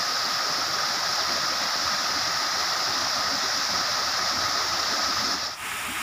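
Artificial waterfall pouring over a rock wall into a pond: a steady rush of falling water. Near the end the sound shifts and gets a little quieter.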